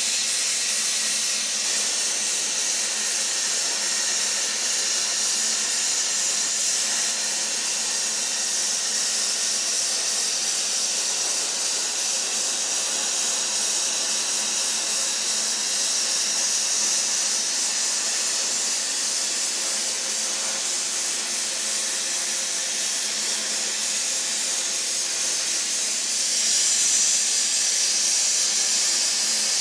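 Plasma cutter cutting steel plate: a steady, loud hiss from the arc and air jet that rises slightly about three-quarters of the way through.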